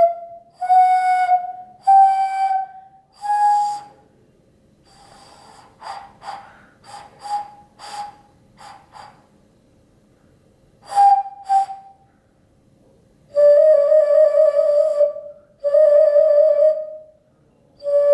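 Homemade oven-clay tsuchibue, an egg-shaped Japanese clay vessel flute, being blown. Five notes step up in pitch one after another, then come several short, weak, breathy toots. After a pause there are two short notes, and near the end three long, lower notes.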